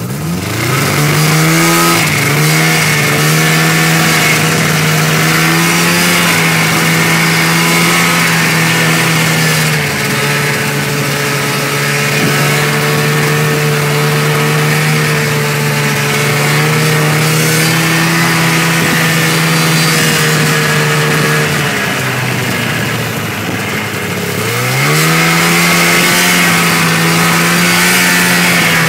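Snowmobile engine revving up from low speed as the throttle opens, then running steadily at high speed. Near the end it eases off for a couple of seconds and then accelerates again.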